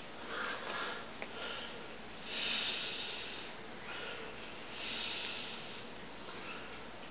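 A person breathing close to the microphone: two airy breaths, each about a second long, a couple of seconds apart.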